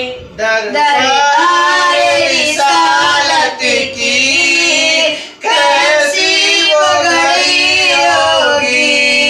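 A boy singing a naat unaccompanied into a microphone, in long drawn-out phrases whose pitch slides up and down, with short breaths about half a second and five and a half seconds in.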